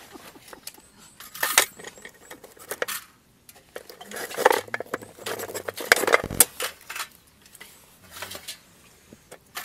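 Irregular clinks and knocks of camp cooking gear being handled and set down, loudest in a cluster past the middle, with one dull thump.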